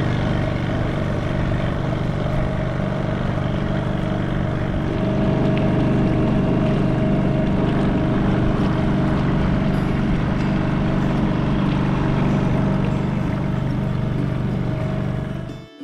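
Small boat's outboard motor running steadily at an even speed, heard from on board; it cuts off abruptly just before the end.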